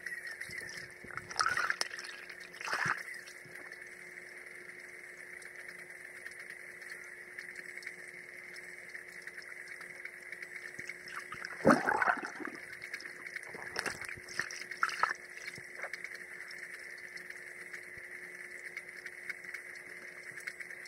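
Water heard underwater in a swimming pool: short swishing, splashy bursts, the loudest about twelve seconds in, over a steady whine and a low hum.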